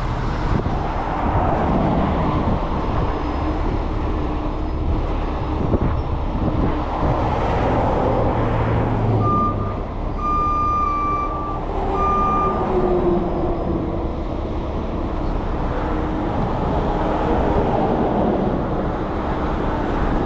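Heavy truck's diesel engine running steadily, with a short, a long and a short electronic warning beep about ten seconds in.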